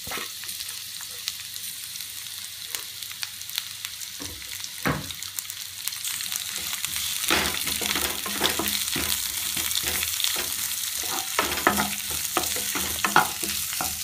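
Sliced onions sizzling as they fry in ghee in a non-stick kadai, stirred with a wooden spatula that scrapes and knocks against the pan. The sizzle grows louder about halfway through, with more scraping toward the end.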